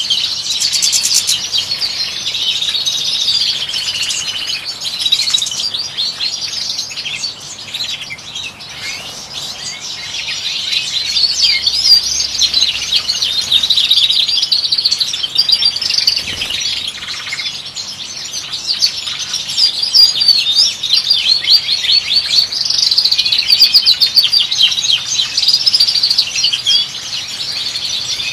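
European goldfinches singing, a continuous fast twittering and warbling of high, liquid notes.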